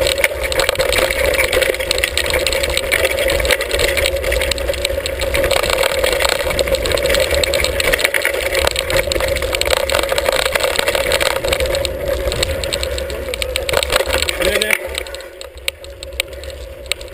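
Hardtail mountain bike rattling over a rough, rocky dirt trail, heard through a camera mounted on the bike, with wind rumbling on the microphone. The rattle and wind die down about fifteen seconds in.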